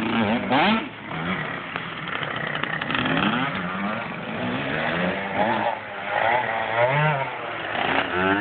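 Small 65cc two-stroke dirt bike engine revving up and down over and over, its pitch rising and falling several times as the rider works the throttle.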